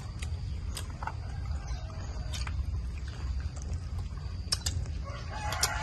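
A rooster crowing, starting about five seconds in, over a low steady rumble and scattered faint clicks.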